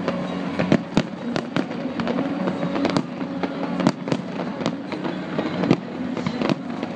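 Fireworks display: aerial shells bursting in an irregular string of sharp bangs, about one or two a second, over a constant low background din.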